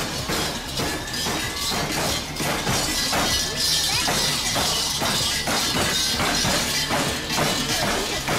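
Krampus costume bells clanging and rattling in a steady rhythm as the fur-clad dancers move, over loud recorded music.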